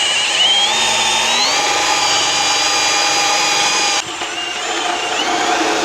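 Handheld power drill running steadily, its motor whine climbing in pitch about a second and a half in. It eases off briefly near four seconds and then runs on.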